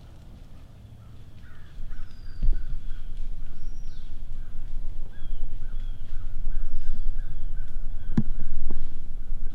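Crows cawing repeatedly in the distance, with a few faint higher bird chirps. A low rumble swells in about two seconds in and stays louder than the calls, with a couple of sharp knocks.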